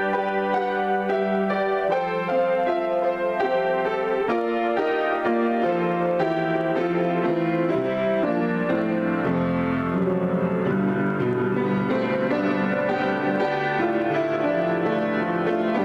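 Solo grand piano playing an improvisation, with many notes held and ringing over one another. A deeper bass note enters about nine seconds in.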